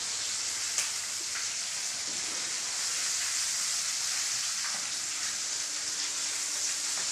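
Pieces of rohu fish frying in hot oil: a steady sizzle with a few small pops. The moisture left in the fish from the fridge is still cooking off into the oil.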